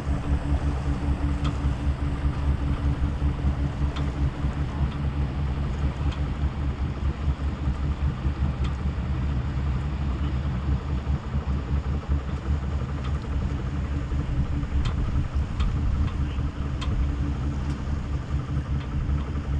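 Steady low rumble with a faint hum, from a sailboat under way, with a few faint ticks here and there.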